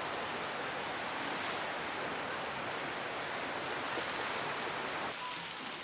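Fountain water splashing and falling in a steady rush. A little over five seconds in it gets slightly quieter and thinner.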